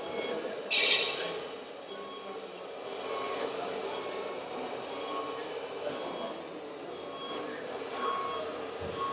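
Running sound of radio-controlled model trucks and construction machines in an indoor hall: a steady hum with faint voices, a short loud hiss about a second in, and faint high beeps repeating about every three-quarters of a second.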